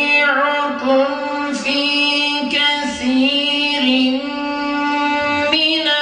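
A man reciting the Qur'an (an aşir passage) in the melodic, chanted style, holding long notes and ornamenting them with small turns in pitch, with short breaks between phrases.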